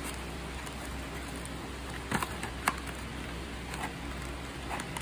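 A handful of short crinkles and taps of clear plastic packing film and cardboard being handled, the sharpest a little over two seconds in, over a steady low hum.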